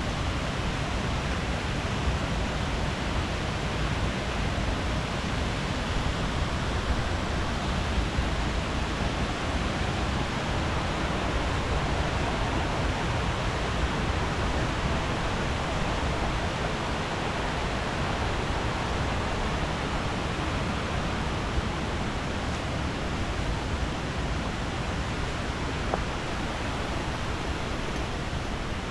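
Waterfall's rushing water: a steady, even noise with no breaks.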